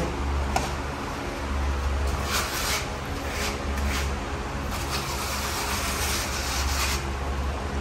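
Rubber grout float scraping and smearing wet, gritty tile grout across floor tiles and into the joints, in repeated back-and-forth strokes, over a low rumble that swells and fades.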